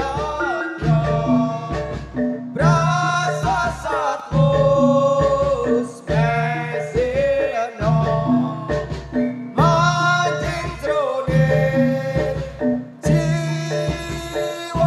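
Javanese gamelan music with a singer: a sung melody over tuned metallophones and a steady drum beat.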